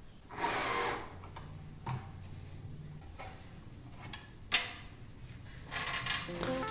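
A tape measure reeling back with a short rushing whirr about half a second in, then a cordless drill working on a pine stud frame: sharp clicks and knocks of handling, and the drill whirring near the end.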